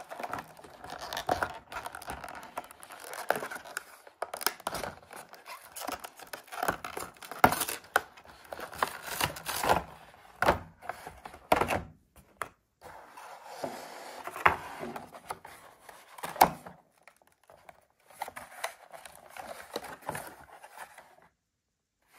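Plastic toy packaging being handled and torn open: crinkling and tearing wrap with sharp clicks and taps, in irregular spurts with brief pauses.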